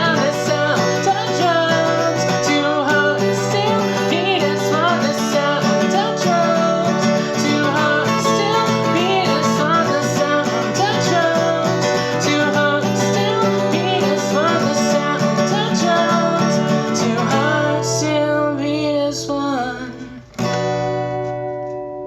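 Acoustic guitar playing a closing instrumental passage of a song. About twenty seconds in it breaks off and one final chord is left ringing and fading.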